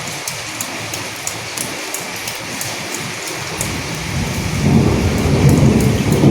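Steady rainfall with scattered sharp drops pattering. About four seconds in, a low rumble of thunder builds and grows louder.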